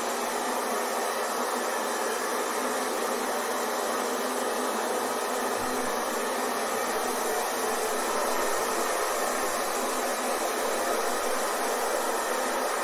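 Hair dryer running steadily: an even rush of air with a faint motor hum and little bass.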